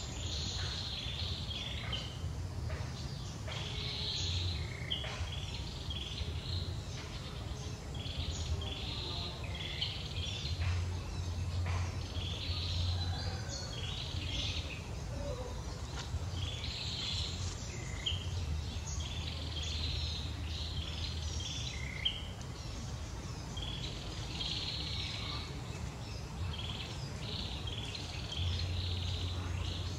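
Outdoor woodland ambience: many short bird chirps and calls, on and off throughout, over a steady low rumble.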